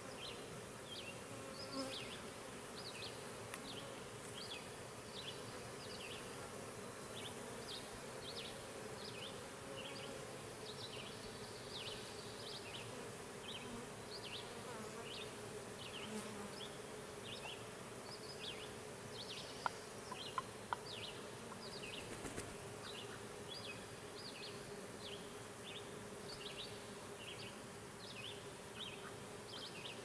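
Honey bees buzzing around a hive in a steady hum, with repeated short high chirps behind it and a few sharp clicks a little past the middle.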